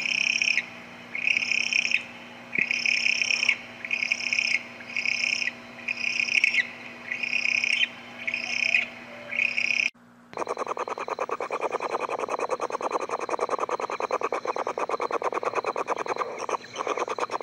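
Burrowing owl giving a series of raspy, high screeching calls, about one a second. About ten seconds in the sound cuts to a different track: a dense, rapid run of ticks.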